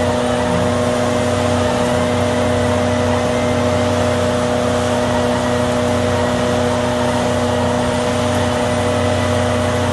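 Arjes VZ 950 Titan shredder running steadily as it shreds mattresses: a constant engine and drive hum with several steady tones, and no knocks or changes in pitch.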